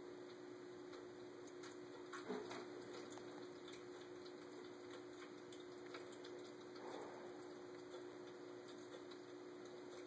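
Electric pet water fountain's pump humming steadily with water trickling, and a cat lapping at it in soft, irregular clicks, one a little louder about two seconds in.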